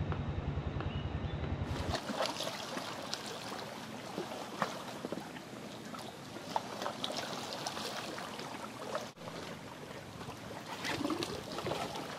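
Shallow seawater lapping and trickling among shore rocks: a steady splashy hiss dotted with small clicks and drips. For the first two seconds there is instead a low pulsing rumble.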